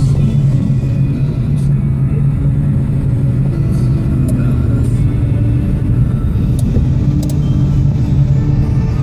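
Steady low drone of a car's engine and tyres heard from inside the cabin while driving, with music playing along with it.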